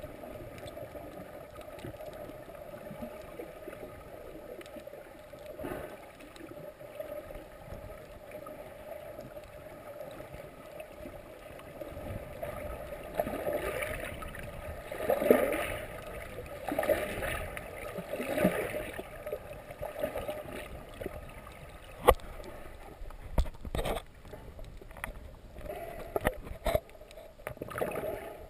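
Muffled underwater sound through a camera's waterproof housing: a steady low hum under a wash of water noise, with a run of louder bubbly swooshes from a snorkeler's fin kicks and bubbles in the middle, and a few sharp knocks near the end.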